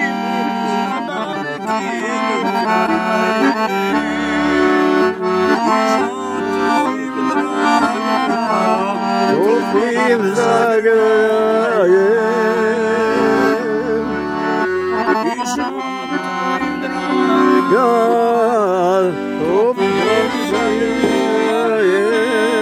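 Scandalli piano accordion playing a traditional folk tune, with melody and held chords throughout.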